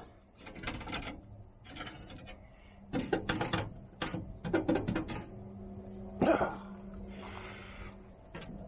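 Metal wire racks rattling and clinking as they are slid out of an old box smoker and set down, in several short clatters with the loudest knock about six seconds in. A faint steady low hum runs under the second half.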